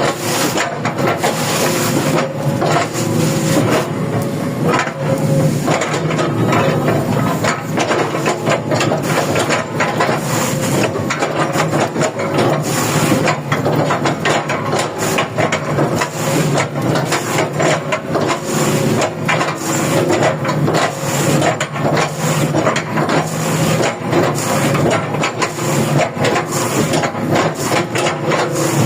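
Komatsu PC200-10 hydraulic excavator running steadily while its bucket chops an oil palm trunk into chips, with a dense, irregular stream of wood cracking and crunching over the engine.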